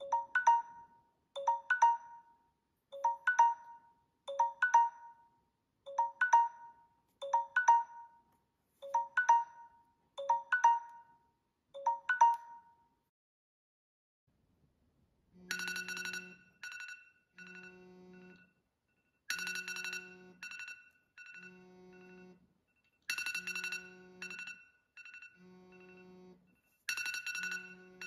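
Phone timer alarms going off in turn. First a Samsung Galaxy S8's timer sounds nine short double beeps about a second and a half apart; then, after a brief pause, an iPhone 6's timer ringtone begins, a chiming pattern over a low pulse that repeats about every four seconds.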